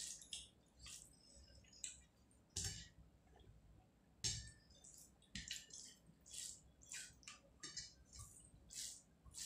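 Close, faint eating sounds: wet chewing and mouth smacks, with fingers squishing and mixing rice and curry on a plate. An irregular scatter of short ticks and smacks, two of them louder, a little after two seconds and about four seconds in.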